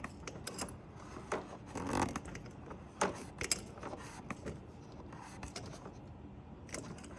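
Hand tools clicking, knocking and scraping on metal engine parts, in scattered short strokes a second or so apart.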